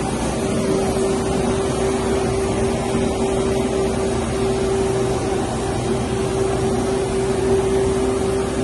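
Machinery of a Heidelberg offset press with its UV interdeck curing unit and cooling blowers running steadily: an even machine drone with a constant hum.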